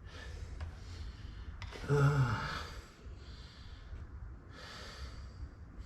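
A man's short, low, falling grunt about two seconds in, then a breathy exhale around five seconds, over a steady low background hum.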